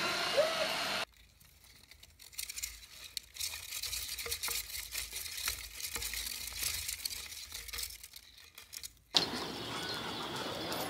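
Small rodent in a plastic exercise wheel: light scratchy rustling and irregular ticking of claws and bedding against the wheel. It is preceded by about a second of a robot vacuum's steady whine, which cuts off abruptly.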